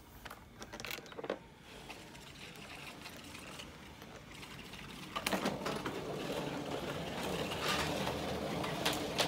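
A few faint clicks, then about five seconds in a Bissell PowerForce Helix upright vacuum cleaner switches on with a knock and its motor runs steadily.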